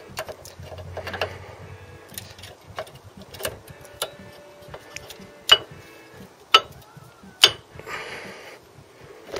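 New brake pad being pushed and worked into the caliper carrier of a Ford Fiesta Mk7 front brake: a run of light metallic clicks and taps as the pad's backing plate meets the carrier and its clips, with three sharper clicks a little after halfway.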